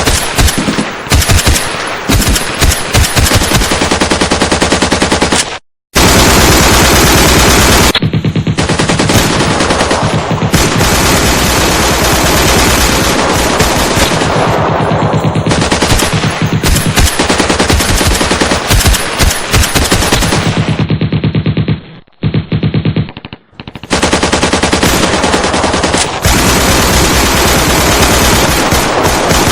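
Machine-gun firefight: long bursts of rapid automatic fire, overlapping into near-continuous shooting. It breaks off briefly about six seconds in and again for a couple of seconds about two-thirds through.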